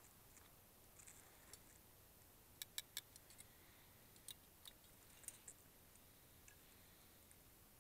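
Near silence broken by sharp clicks of kitchen tongs snapping shut: three quick clicks about two and a half seconds in, then a few more spread over the next few seconds.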